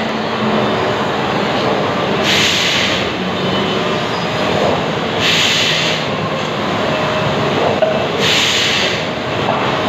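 Timber-processing machinery and conveyor line running steadily in a factory hall, with a short burst of hiss about every three seconds, three times.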